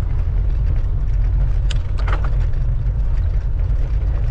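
Wind buffeting the microphone while riding a bicycle: a steady, loud low rumble, with a brief higher sound about two seconds in.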